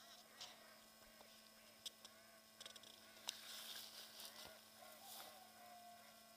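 Geese honking faintly in the distance, many short calls with one longer call near the end, over a faint steady hum and a few light clicks and rustles.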